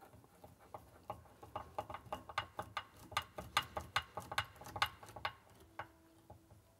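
Screw being driven by hand through a metal bracket into a door panel, with the screwdriver making a run of sharp clicks, about four a second, that stops about five seconds in.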